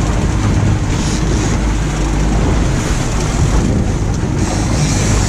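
Wind buffeting the microphone over a boat's engine running steadily, with sea water washing along the hull.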